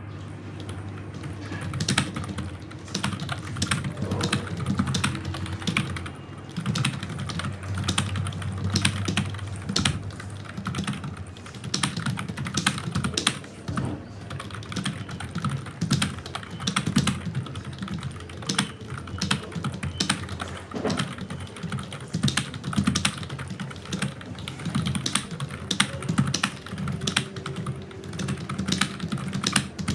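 Fast, continuous typing on a computer keyboard, many keystrokes a second without a break.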